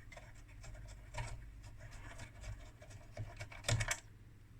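Light, scattered clicking and scraping of small parts being handled on an electronic unit, with a louder quick cluster of clicks near the end.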